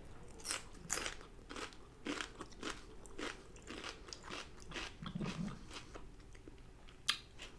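A person chewing crunchy food, a run of crisp crunches two or three a second, with a sharper crunch near the end.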